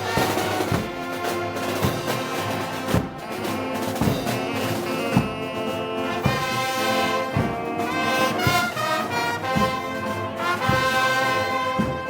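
Festival brass band playing Moros y Cristianos parade music: trombones and trumpets holding chords over a steady, regular drum beat.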